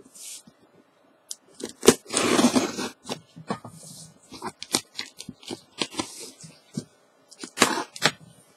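Heavy-duty packing tape being torn and picked at on a cardboard mailing box, with scattered sharp crackles and taps. There is a longer rip about two seconds in, lasting about a second, and another burst of crackling near the end.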